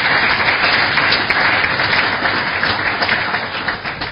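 Audience applause, a dense crackle of many hands clapping, holding steady and then dying away near the end.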